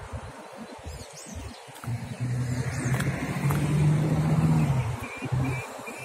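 A car passing by: its engine and tyre hum swells for a couple of seconds and then fades away. Small birds chirp now and then above it.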